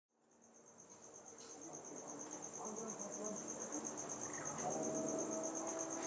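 An insect chirping in a rapid, even, high-pitched pulse. It fades in from silence over the first couple of seconds, with soft held low tones underneath.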